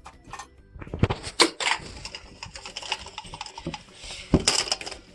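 Rustling, crackling and sharp clicks of plastic Easter eggs and the toys inside them being handled and opened, with a louder click about a second in and another near the end.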